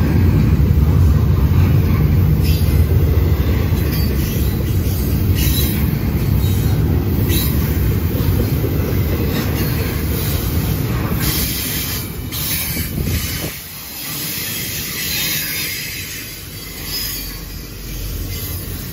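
Double-stack intermodal freight train's container-laden well cars rolling past at close range: a heavy low rumble of steel wheels on rail, with intermittent high-pitched wheel squeal. The low rumble eases about two-thirds of the way through while the squeal and higher rail noise carry on.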